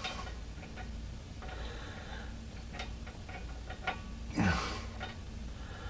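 Faint, irregular metallic clicks of a wrench working the bolts of a driveshaft flange at the rear differential, with one louder brief sound about four and a half seconds in.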